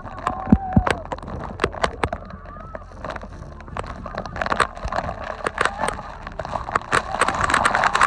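Wind-blown water spray from the reverse waterfall striking the camera in a rapid, irregular patter of sharp taps, over a low rumble of wind on the microphone. A few short whooping shouts from the people can be heard.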